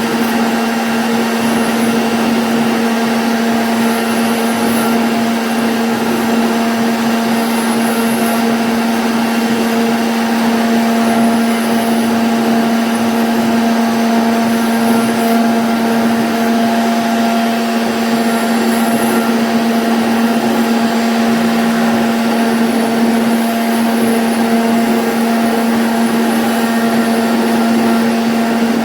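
CNC router spindle running steadily with a constant whine while cutting a 2D jali pattern in MDF.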